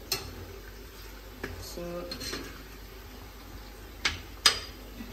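Metal spoon stirring in a metal frying pan of curry, clinking and scraping against the pan: one sharp clink near the start, another about a second and a half in, and two close together near the end.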